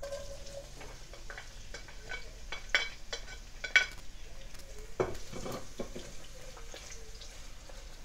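Sliced onions tipped into hot oil in a pot, sizzling as they start to fry. Two sharp knocks against the pot a little under three and four seconds in, then a spatula scraping as the onions are stirred.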